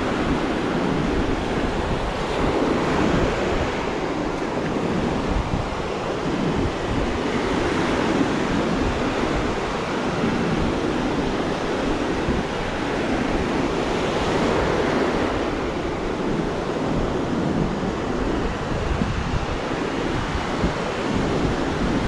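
Ocean surf washing onto the beach, a steady roar of waves that swells and eases every few seconds, with wind buffeting the microphone.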